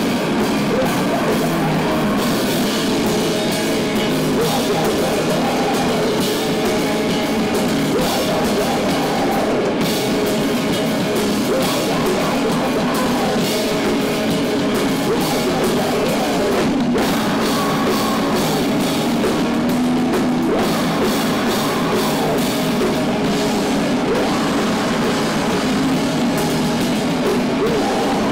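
Live hardcore band playing loud and without a break: electric guitars and a full drum kit with cymbals.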